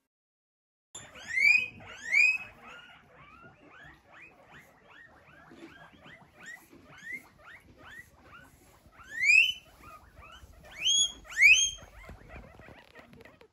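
Several guinea pigs wheeking: a run of rising squeals that begins about a second in, loudest in pairs around the second mark, around nine seconds and around eleven seconds, with many softer rising calls in between.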